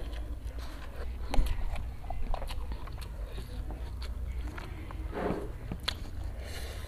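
Close mouth sounds of a man chewing and slurping forkfuls of instant fried cup noodles, with scattered small clicks. The loudest is one sharp click about a second and a half in, and a short slurp-like burst comes near the end.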